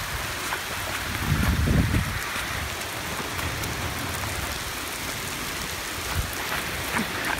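Steady rain falling after a hailstorm, an even hiss with scattered drop ticks. A brief low rumble about one and a half seconds in.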